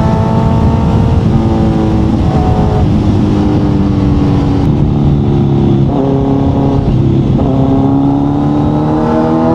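Kawasaki Z900's inline-four engine through an Akrapovic exhaust, cruising on a steady note that sags slightly and then climbs gradually over the last few seconds as the throttle opens. Wind rushes over the microphone underneath.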